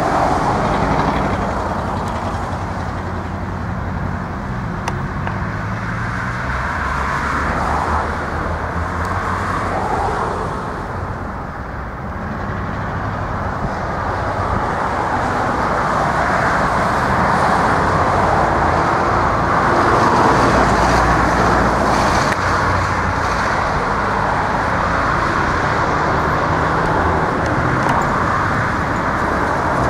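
Road traffic passing close by on a multi-lane road, mixed with the low diesel rumble of a coal train's rear distributed-power locomotives. The sound is steady and grows somewhat louder in the second half.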